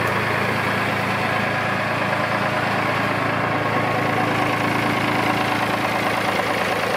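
David Brown 780 Selectamatic tractor's three-cylinder diesel engine idling steadily, a low even chug that neither rises nor falls.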